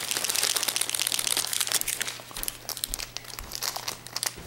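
Plastic wrapper of a small toy packet crinkling as it is handled, a dense crackling for about two seconds, then lighter scattered crackles.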